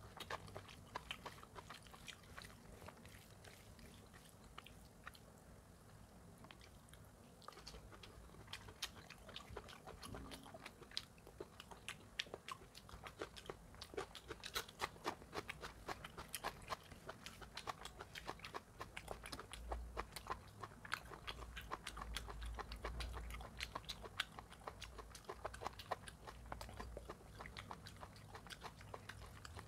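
Close-up wet chewing and lip-smacking of curry-soaked rice and mutton eaten by hand, with soft squelching of the hand working the curry into the rice. A steady run of small clicks that thins out a few seconds in and grows busier in the second half.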